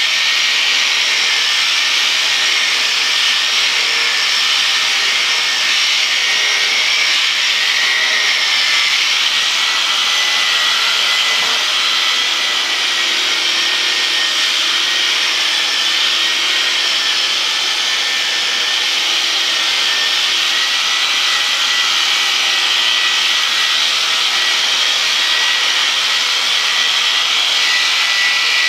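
Electric sheep shears running steadily with a high-pitched whine as the cutter is worked through a ram's fleece.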